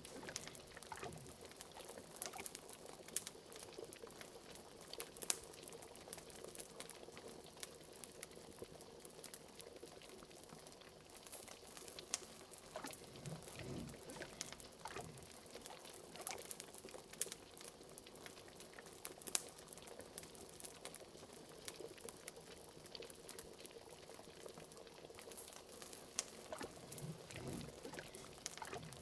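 Bubbling liquid at a steady boil, the sound of a simmering cauldron, with many scattered sharp pops and crackles, likely from a fireplace, and a couple of deeper gloops.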